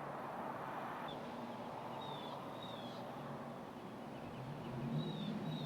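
Outdoor street ambience: a steady rumble of passing traffic, with a few short high bird chirps about a second in, around two to three seconds in, and again near the end.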